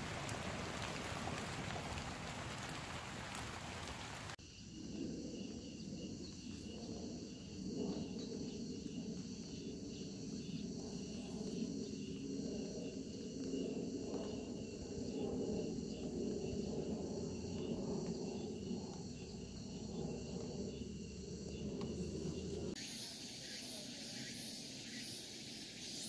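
Outdoor ambience in three cuts: an even hiss for the first few seconds, then steady insect chirring over a low rumble, and after a cut near the end a higher, brighter insect buzz.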